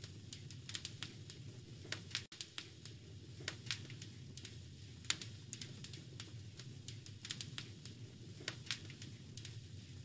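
Fireplace fire crackling: irregular sharp pops and snaps over a steady low rumble, with a very brief drop-out a little after two seconds in.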